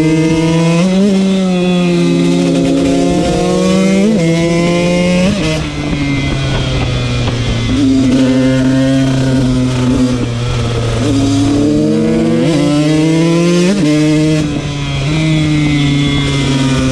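KTM 125 two-stroke single-cylinder motard engine under way, revving up and easing off again and again, its pitch climbing and dropping several times.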